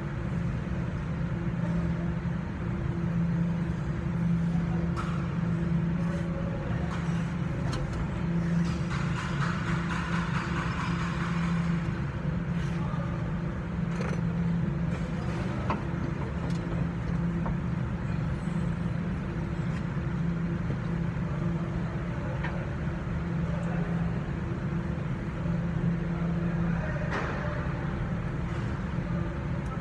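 A steady low mechanical hum holding one pitch throughout, with scattered light clicks and knocks.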